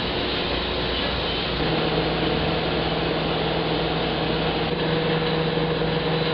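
Steel wire-drawing machine running, pulling wire through a die: a steady mechanical noise. A steady, slightly louder hum joins about a second and a half in.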